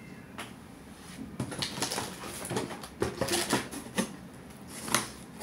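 Packaging rustling and crinkling as items are rummaged out of a box of cosmetics, with scattered light taps and clicks and one sharper tap near the end.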